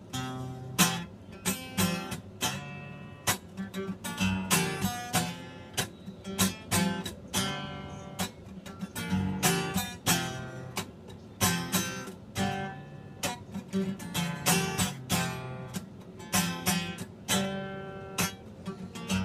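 Acoustic guitar strummed in a steady rhythm, the chords starting abruptly as the playing begins.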